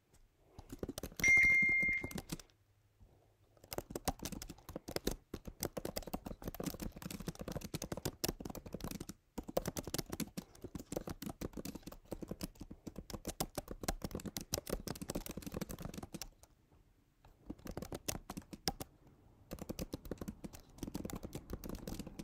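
Typing on a computer keyboard in bursts of rapid key clicks, with short pauses between runs. A short high-pitched beep sounds about a second in, over the first burst of typing.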